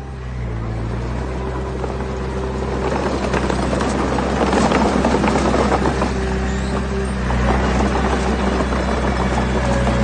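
Diesel engine of heavy earthmoving machinery running steadily, with a rough rattling, crunching noise that swells in the middle and eases off about seven seconds in.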